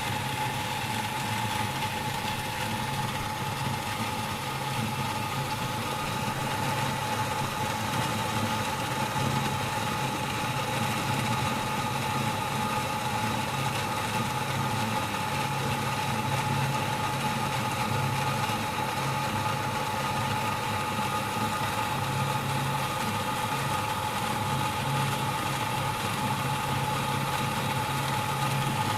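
Electric jet water pump running steadily: a constant whine over a low hum that swells and eases a little.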